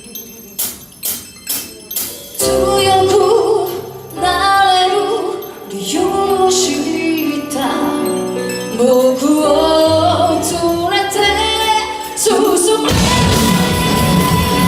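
Live rock band: a few sharp taps, then a singer carrying a melody over the band's accompaniment from about two seconds in. Near the end the full band comes in louder with drums and guitar.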